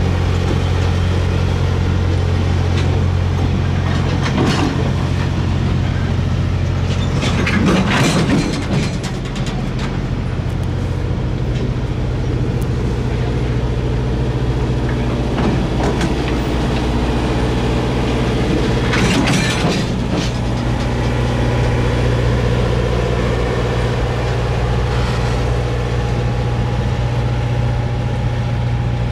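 Freight train of refrigerated boxcars rolling slowly past, over a steady low diesel drone. Several short clanks and squeals from the cars break in, the loudest about 8 s and 20 s in.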